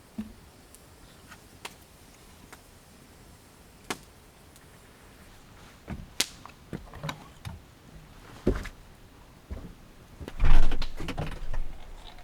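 Scattered light knocks and clicks, then a louder clatter with scraping about ten seconds in.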